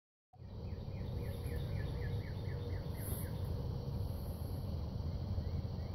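Outdoor ambience: a bird repeating a short falling note about three times a second for the first three seconds, over a steady low rumble and a faint, steady insect drone.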